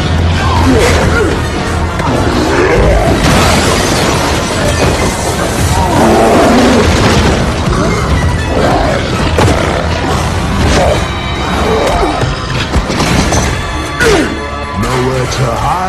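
Film fight soundtrack: a loud music score mixed with crashes, booms and thuds from a brawl, with vocal grunts among them.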